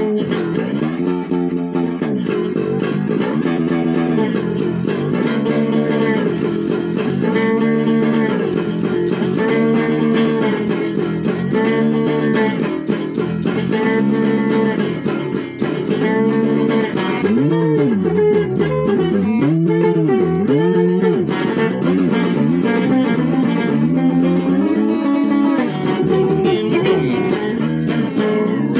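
Electric guitar playing a blues instrumental passage, with many notes bent up in pitch and let back down.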